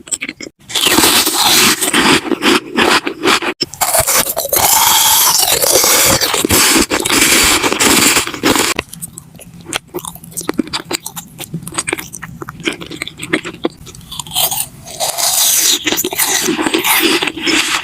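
Someone chewing crunchy food close to the microphone. Loud, crackling crunches run for the first several seconds, give way to softer clicking chews in the middle, and come back loud near the end.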